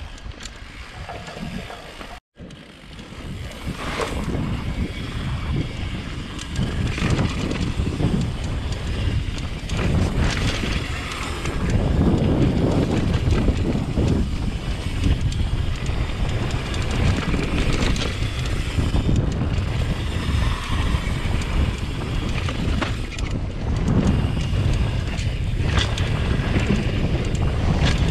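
Wind buffeting an action camera's microphone and knobby tyres rumbling over a dirt trail as a mountain bike rides downhill, with the bike rattling over bumps. The sound drops out for a moment about two seconds in and is louder from about twelve seconds on.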